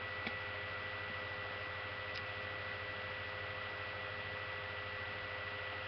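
Steady electrical hum and hiss with a thin, constant high whine, the background noise of a webcam recording in a small room, with two faint clicks.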